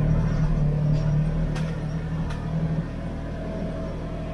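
Polaris General side-by-side driving on sand, its engine running steadily as heard from inside the cab, then easing off about three seconds in.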